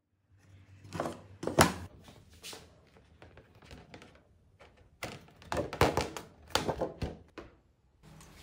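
Handling knocks and thunks of plywood parts and sheet material being moved and set down on a workbench: a few sharp knocks about a second in, then a denser run of knocks in the middle.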